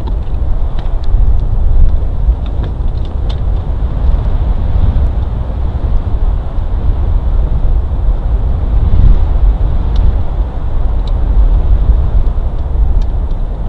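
Wind buffeting an outdoor nest-cam microphone: a loud, uneven low rumble, with a few faint clicks scattered through it.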